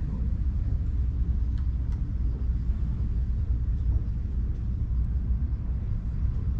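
Calico cat purring steadily while being stroked, a continuous low rumble close to the microphone.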